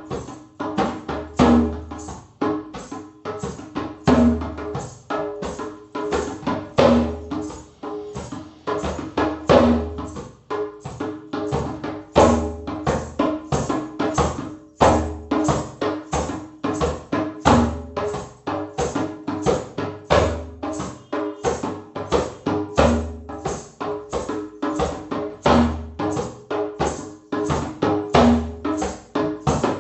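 Music with fast, even percussion strikes over a held tone, and a deep bass note returning every few seconds.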